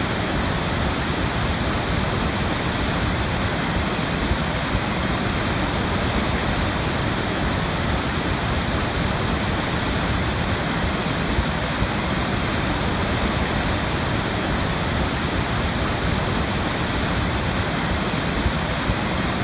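Big waterfall: a steady, unbroken rush of falling water.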